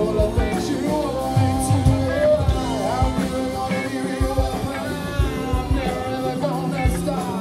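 A live funk band playing: drum kit beating steadily, with bass and keyboards, under a male singer's voice.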